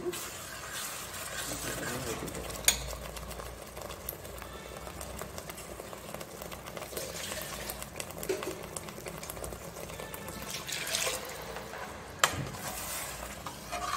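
Masala curry with water added bubbling in a steel pot on the stove, with a ladle and vessels clinking on the steel. There are two sharp metal clinks, about 3 s and 12 s in.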